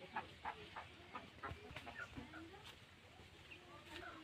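Chickens clucking faintly: a quick run of short clucks in the first two seconds, then a few scattered calls.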